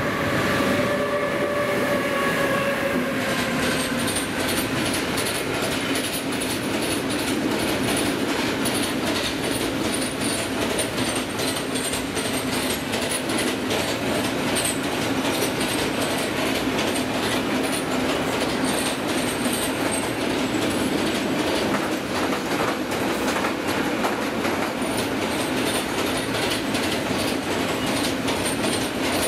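Freight train of loaded open hopper wagons rolling past at speed: a loud, steady rumble with rapid clickety-clack of the wheels over the rail joints and a thin high squeal from the wheels. A few pitched tones die away in the first three seconds.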